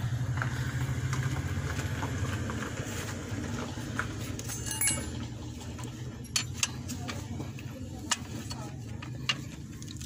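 Combination wrench clinking on the automatic transmission's drain plug, a few sharp metal clicks in the second half. Under it a low hum slowly fades away.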